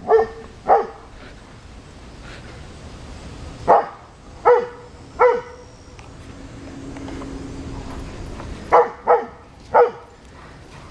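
Play barking from a large dog romping with other dogs: short sharp barks in bunches, a couple near the start, three together a few seconds in, and another quick run of three or four near the end.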